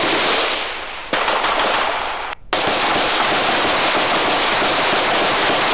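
Automatic small-arms fire in combat: rapid shots running together into a continuous clatter, dipping briefly about a second in and cutting out for a moment near the middle before carrying on.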